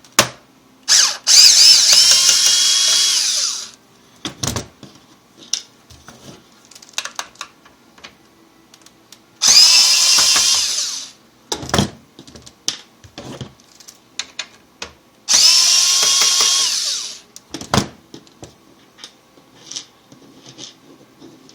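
Electric screw gun running in three bursts of one to two seconds, each spinning up to a steady whine, backing out the screws that hold the monitor stand. Clicks and knocks of the screws and the plastic casing being handled come between the bursts.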